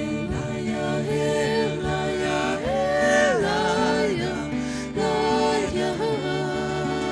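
Acoustic folk band music: guitar accompaniment under a sliding, wavering lead melody line.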